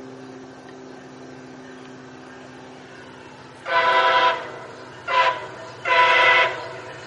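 MARC commuter train's diesel locomotive sounding its multi-note horn: a long blast about three and a half seconds in, a short one, then another long one, over a steady low drone.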